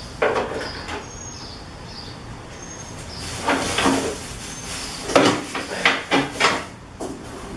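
Parts and packaging knocking, rattling and rustling as they are handled and pulled out of a shipping box. There is one sharp knock about a quarter second in, then a cluster of knocks and rustling from about three seconds to six and a half seconds.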